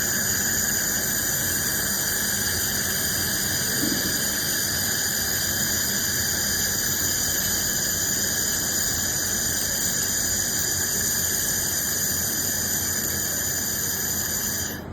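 Laser welder running steadily: a constant high-pitched squeal made of several steady tones over a hiss, cutting off suddenly near the end.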